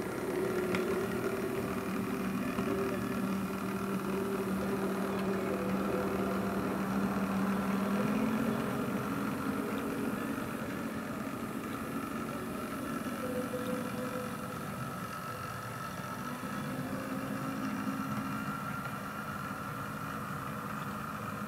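Model diesel shunter locomotive running along the track, a steady engine-like drone that steps up in pitch about eight seconds in and eases a little in loudness as it draws away.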